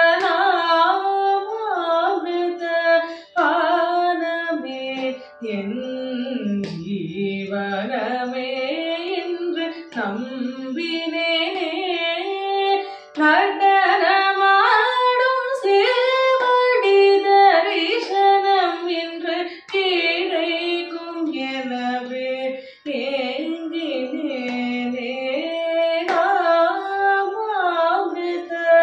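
A woman singing solo Carnatic vocal music, a padavarnam in raga Nattakurinji, her pitch gliding and bending through ornamented phrases with short breaks for breath. A steady drone from an electronic shruti box sounds beneath the voice.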